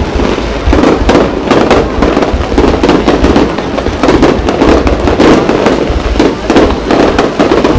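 Aerial fireworks shells bursting in quick succession: a dense, continuous run of bangs with no pause.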